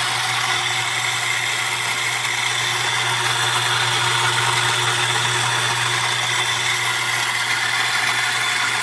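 Electric coffee grinder's motor running steadily with an even whir and a constant low hum.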